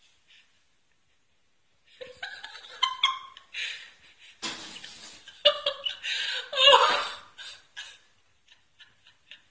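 People laughing in short, broken bursts, starting about two seconds in after a near-silent start.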